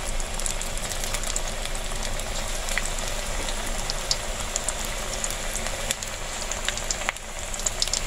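Pakora deep-frying in hot oil: a steady sizzle with many scattered crackles and pops.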